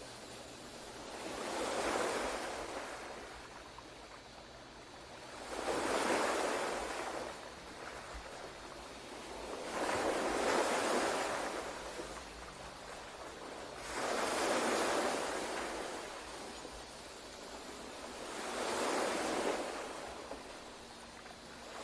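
Ocean surf soundscape: waves wash in and draw back in slow swells, five of them, each about four seconds apart.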